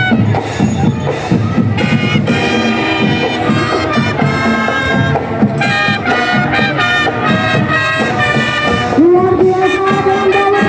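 Marching drum band playing: steady drumming under a melody line, with a long held note starting about nine seconds in.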